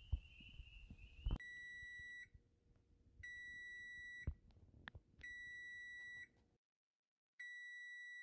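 Electronic alarm beeping: a steady high beep about a second long, repeating every two seconds or so, four times. It is preceded by a few soft thumps over a faint wavering high tone.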